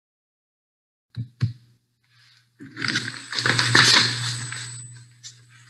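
Noise picked up by a webcam's microphone before a talk begins: two quick clicks about a second in, then a steady low electrical hum under a couple of seconds of rustling.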